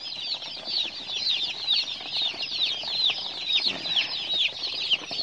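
A brood of day-old broiler chicks peeping nonstop, a chorus of many overlapping high cheeps that each slide downward in pitch.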